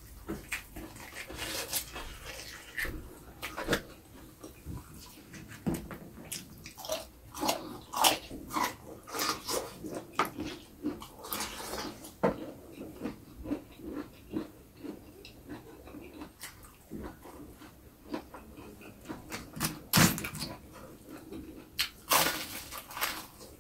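Close-miked chewing: irregular crisp crunches and wet mouth sounds from eating raw baby corn, with a louder bite of fried tofu near the end.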